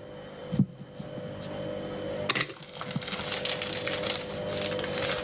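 A table knife clicks and scrapes as it spreads jam onto a slice of bread. From about halfway through, a plastic bread bag crinkles and rustles as it is handled, over a steady faint hum.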